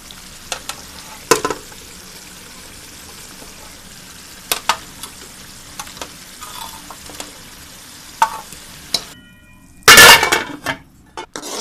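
Masala gravy sizzling steadily in a pan, with a few sharp clinks of a spoon against the pan as chicken pieces are added. The sizzle cuts off suddenly near the end, followed by a loud clatter.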